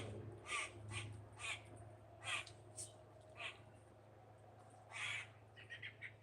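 Crows calling with short harsh caws, about seven spaced out and then a quick run of shorter ones near the end, over a steady low hum.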